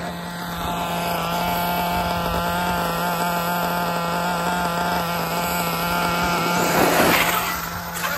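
Large RC monster truck's motor running at speed with a steady whine, along with tyre and dirt noise. A louder rush of noise comes about seven seconds in.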